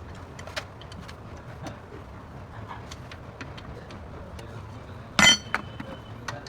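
Light metallic clicks and taps of tools and parts being handled, then one loud metal clank about five seconds in that rings briefly.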